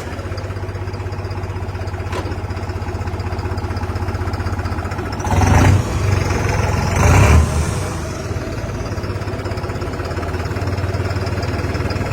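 New Holland tractor's diesel engine, its fuel injection pump just modified, running with a fast even beat and revved up hard twice, about five and seven seconds in.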